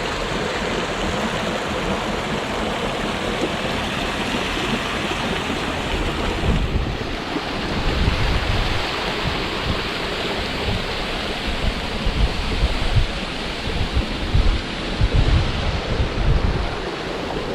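Steady rush of waterfall water, with wind buffeting the microphone in low gusts from about a third of the way in, strongest near the end.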